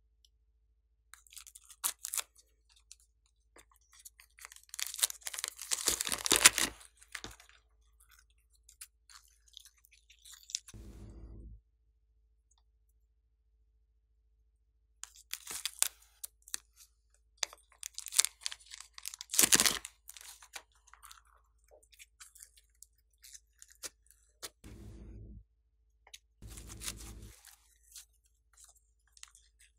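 Glossy slime squeezed from plastic piping bags and squished by hand: bursts of sticky crackling and clicking, with three short low squelches.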